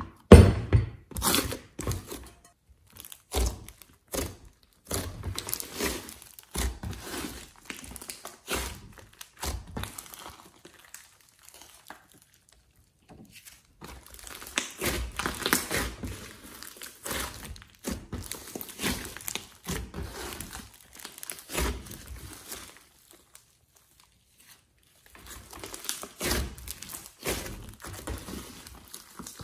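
Hands squishing, folding and pressing a large mass of thick slime mixed with clay, crackling and tearing as it is worked, with thuds as it is pressed down onto the table. The sound comes in irregular bouts, with two short pauses.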